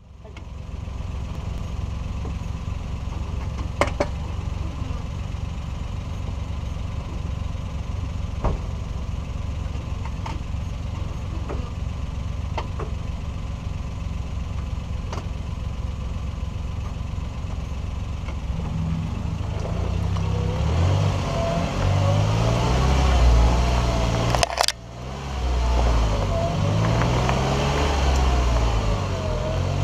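A Suzuki Jimny's engine running at low speed over a rough dirt track, with a few sharp knocks from the bumpy ground. From about two-thirds of the way through, the engine note rises and wavers as it pulls harder. It dips briefly near the end, then picks up again.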